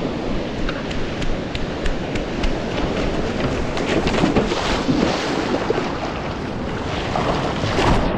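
Ocean water rushing and splashing close to a camera mic, with many sharp spatters and wind buffeting the microphone.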